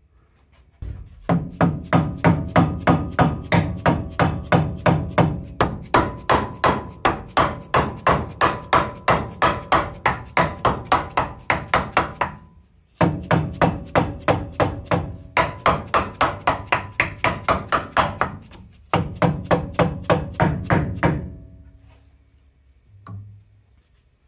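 Mallet tapping rapidly on the metal spindle pulley of a Grizzly G0602 lathe, about four blows a second in three long runs with short breaks, each blow ringing. The pulley is being knocked on straight and flush after a belt change.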